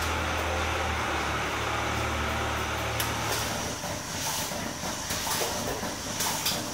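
Milking parlour machinery running: a steady low hum for about the first three seconds, then hissing with sharp clicks roughly once a second.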